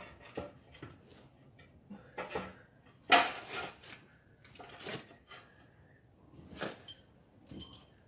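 Steel tire irons clanking and scraping against a steel wheel rim as the bead of a large backhoe tire is pried off it. The knocks are irregular, and the loudest metal clank comes about three seconds in.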